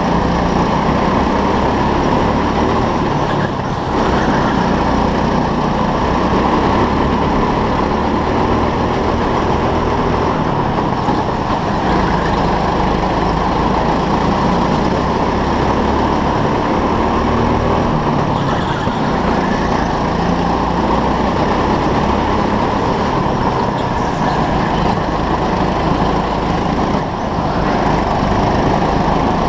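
Go-kart driving at racing speed, heard from on board: a loud, steady running noise with no clear revving, dipping briefly about three seconds in and again near the end.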